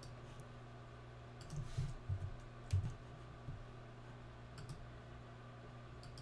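Scattered computer mouse and keyboard clicks, a few single ones and a short cluster, over a faint steady low hum.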